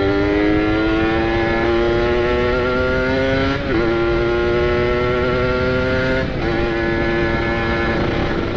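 Kawasaki Ninja 150 RR single-cylinder two-stroke engine, freshly rebuilt and ported, riding under light throttle as it is run in. Its pitch climbs slowly, with two brief breaks about three and a half and six seconds in where gears are changed.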